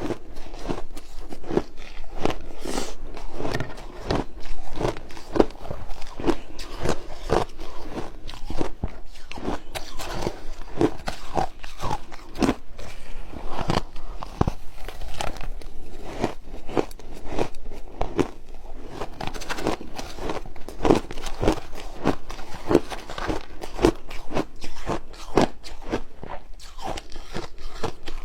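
Ice being bitten and chewed close to the microphone: a dense run of irregular crunches and cracks that keeps going.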